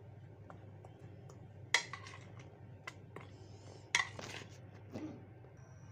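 Light clinks and knocks on a ceramic plate as fish pieces are turned in the marinade, with two sharper knocks about two and four seconds in and a few fainter ticks between them.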